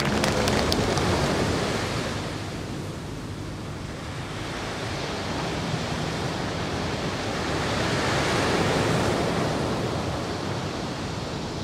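A few last claps in the first moment, then an even rushing noise like surf or wind. It swells to its loudest about three quarters of the way through and eases near the end.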